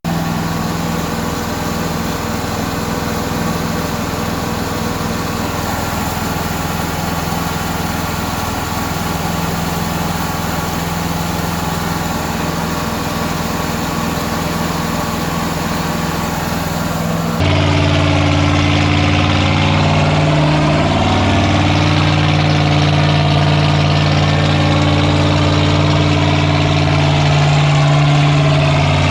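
Chevy small-block V8 boat engine running steadily after ten years of sitting. About two-thirds of the way through, the sound changes abruptly and the engine note then wavers up and down.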